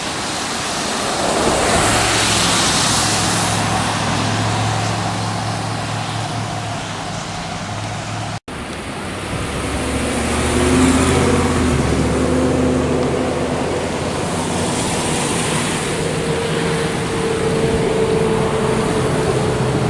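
Car driving along a road: steady engine hum and tyre-and-road rush, with the rushing noise swelling louder a few times.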